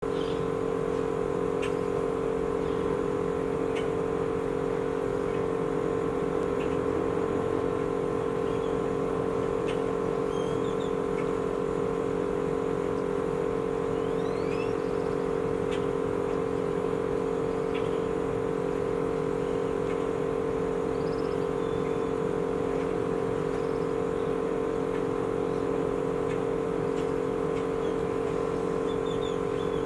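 Steady mechanical hum that holds one pitch throughout, with a few faint short chirps above it.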